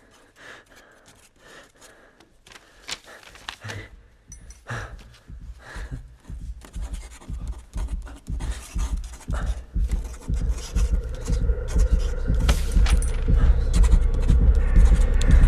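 Film sound design: scattered scratching and clicking noises over a low rumbling drone. The drone swells steadily louder, and a steady hum tone joins it about two-thirds of the way in.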